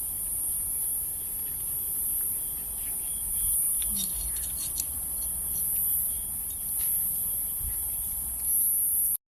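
Outdoor ambience dominated by a steady high-pitched insect drone, with a few short clicks about four to five seconds in and low wind rumble on the microphone. The sound cuts off abruptly near the end.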